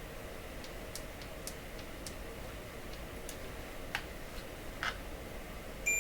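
Faint, irregular light ticks and clicks of small parts and test leads being handled at a workbench, over a steady low hum. Near the end there is one short, high electronic beep.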